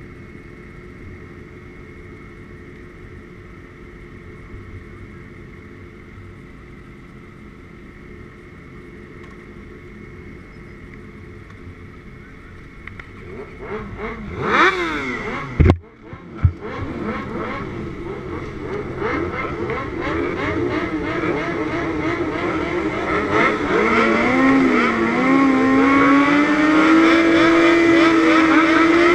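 600cc superbike engines idling and revving on the starting grid, growing steadily louder in the second half as the riders hold revs waiting for the start. Near the middle a quick falling engine note is followed by a sharp knock.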